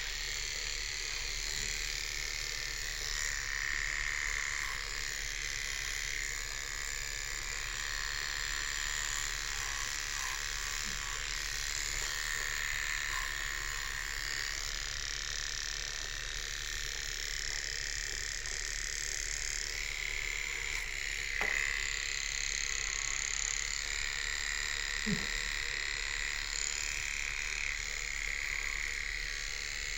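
Small electric pet-grooming tool, a clipper or nail grinder, buzzing steadily while a borzoi is groomed.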